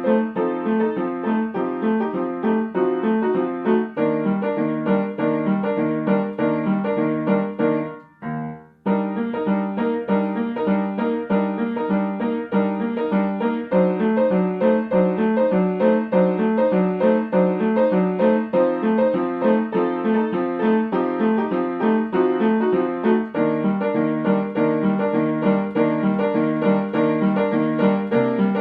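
Background music led by a piano-like keyboard playing a fast, repeating pattern of notes. It cuts out briefly about eight seconds in, then resumes.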